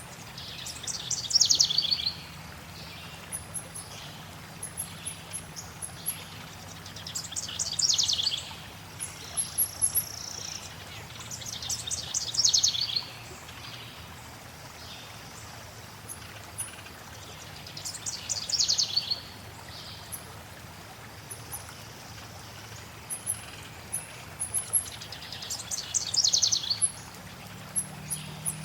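A songbird repeating a short descending trilled phrase five times, about every five to six seconds, over a steady wash of flowing water, with thin high chirps in between.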